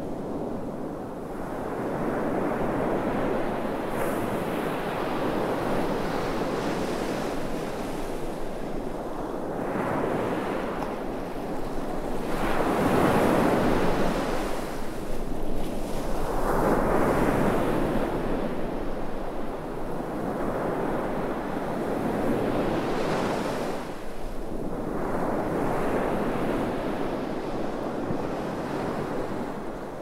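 Sea waves breaking and washing up a sandy beach, the surf swelling and falling back every few seconds, loudest about halfway through.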